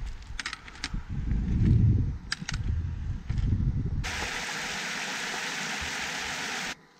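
Low wind rumble on the microphone with a few sharp clicks, then, about four seconds in, a small mountain waterfall splashing down rock: a steady rush that cuts off suddenly shortly before the end.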